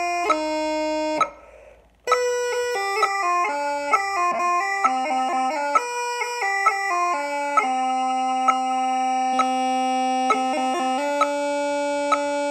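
Bagpipe chanter tune played in two-part harmony, with a steady click about once a second. The music breaks off about a second in, picks up again about two seconds in, and holds long notes through the second half.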